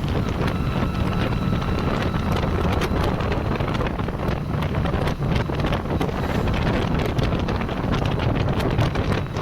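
Wind rushing and buffeting over the microphone on a moving motorcycle: a steady, heavy low rumble with many short crackles through it.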